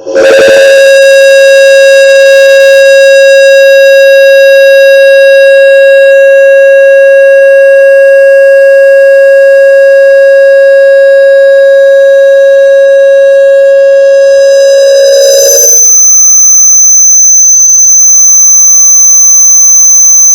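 Speaker feedback screech: a very loud, steady howling tone from a microphone picking up its own speaker, starting abruptly and holding one pitch. About fifteen seconds in it jumps to a much higher, shrill whistle that carries on.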